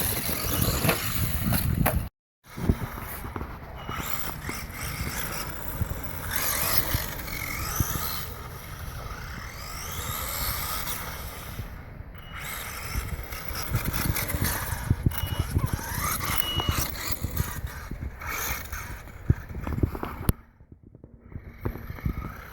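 HPI Savage Flux XS electric RC monster truck running on a 2S LiPo: its brushless motor whines up and down in pitch as the throttle is worked, over rough tyre and ground noise. The sound cuts out briefly three times, about two seconds in, near the middle and near the end.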